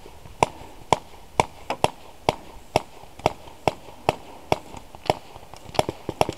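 Paintball marker firing close by in steady single shots, about two a second, speeding up into a quick string of shots near the end.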